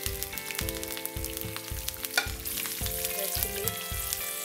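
Green chillies and dried red chillies sizzling and crackling in hot oil with seasoning seeds in a small frying pan, over background music with a steady beat.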